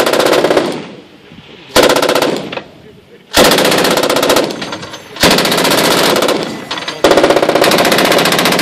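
Belt-fed machine guns firing five bursts of one to two seconds each, the reports dying away in the short gaps between bursts.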